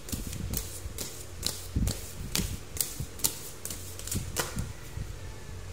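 Tarot cards being shuffled and handled for one more draw: a run of irregular light clicks and taps, about three or four a second.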